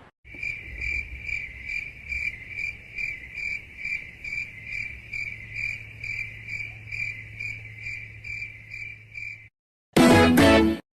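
Crickets chirping, the 'awkward silence' meme sound effect: an even, high chirp repeating about three times a second for about nine seconds. It stops, and near the end a short loud burst of the next effect cuts in.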